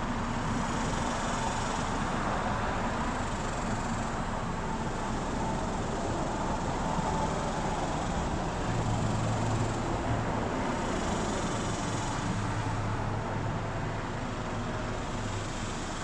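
Trane XR13 central air conditioner's outdoor unit running: a steady rush of air from the condenser fan, with a faint low hum joining in about halfway through.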